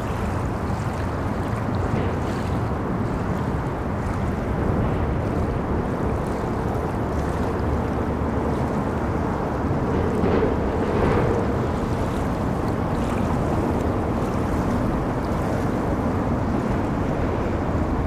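Steady wash of moving river water blended with the low, continuous rumble of traffic crossing a bridge, swelling briefly about ten seconds in.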